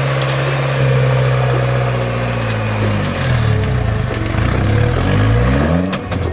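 Rock-crawler buggy engine working hard under load as it climbs over a boulder. It holds steady revs at first, then revs up and down in a series of short blips. A few sharp knocks come near the end as the buggy lurches over the rock.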